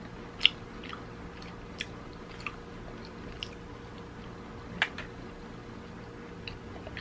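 Close-up mouth sounds of someone chewing a Korean rice cake that has gone hard, with scattered sharp clicks and smacks, the loudest about half a second in and again near five seconds.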